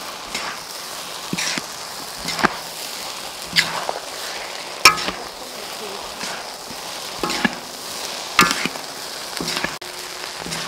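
Fried rice sizzling steadily in a large wok while a metal spatula stir-fries it, striking and scraping the wok about once a second. Some strikes ring briefly, and the loudest comes about five seconds in.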